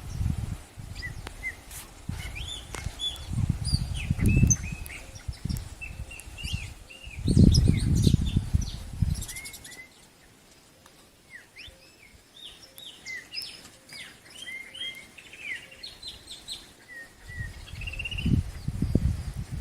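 Many small birds chirping and twittering in short, high calls that overlap throughout. Bursts of low rumble come and go in the first half and return near the end, and the loudest of them is about seven seconds in.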